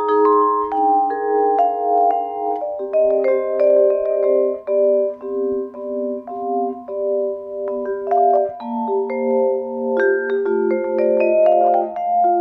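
Musser vibraphone played solo with four mallets: an unhurried, lyrical piece of soft chords and melody whose struck notes ring on and overlap, the held notes gently pulsing.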